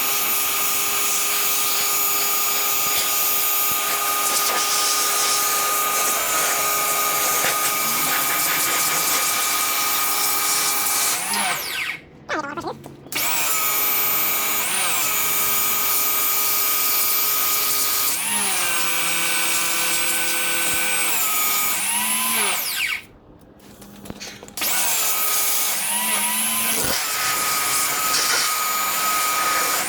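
Electric pressure washer running, its motor and pump giving a steady whine over the hiss of the spray as it rinses degreaser off a greasy engine bay. It stops twice for about a second, the whine gliding down as the trigger is released and back up as spraying resumes.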